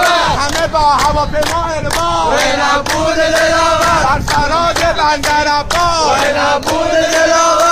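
Men singing a song together in a loud chant-like unison, with rhythmic hand clapping keeping the beat.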